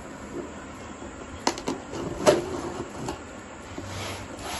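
A cardboard shipping box being handled while its packing tape is picked at and cut open with a small tool: a few sharp taps and scrapes on the cardboard, the loudest a little after two seconds in.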